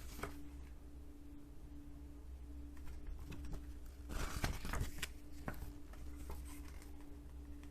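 Booklet pages and disc packaging being handled: soft paper rustles and a few light taps, with a busier patch of rustling about four seconds in, over a faint steady hum.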